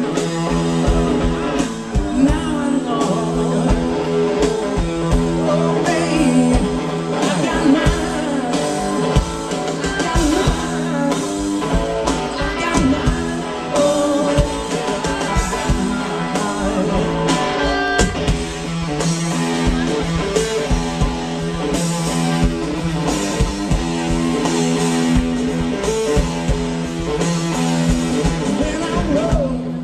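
Blues-rock band playing live, with electric guitar, drums and sung vocals at a steady loud level.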